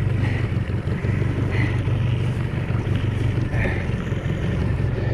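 A small fishing skiff's motor running steadily at low speed, a constant low hum, with wind and water noise over it.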